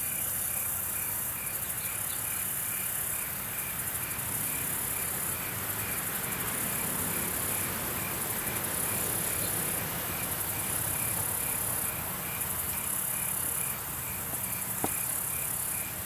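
Evening insect chorus of crickets: a steady high-pitched trilling that fades and returns every few seconds, with one insect chirping evenly about three times a second.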